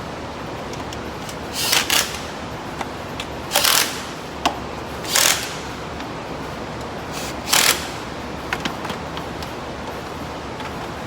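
Short hissing bursts, five of them a second or two apart, with light clicks from hand-tool work on an engine between them, over the steady noise of shop fans.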